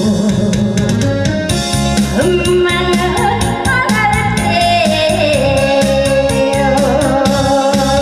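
A woman singing a Korean trot song over a backing track with a steady beat, with a long held note over the second half.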